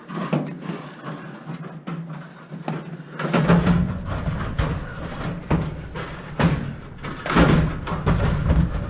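Scrap being shoved and loaded into a full truck bed: repeated knocks and clunks, joined about three seconds in by a low rumbling scrape.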